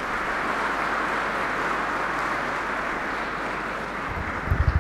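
Audience applauding steadily. Near the end come a few low thumps as the lectern microphone is handled and adjusted.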